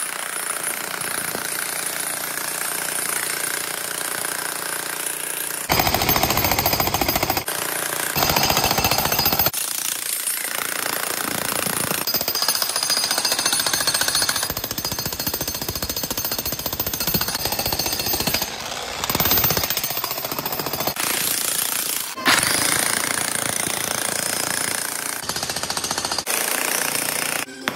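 Bosch electric demolition hammer pounding a chisel into a concrete floor slab, hammering continuously with louder stretches and cutting off just before the end. This is the concrete being broken out to dig down to the buried pipe.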